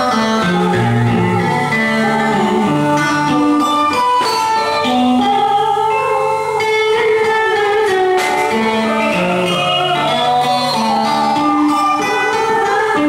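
Instrumental music: a melody over a moving bass line, played at an even level.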